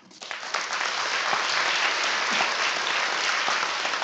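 Audience applauding, the clapping starting suddenly and swelling within about half a second, then holding steady.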